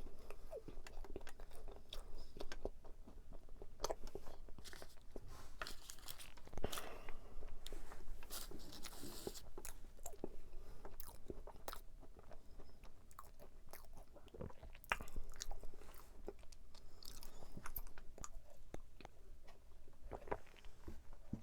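Close-up biting and chewing of a large flaky-crusted tart, the pastry crunching and crackling in many short crisp bites.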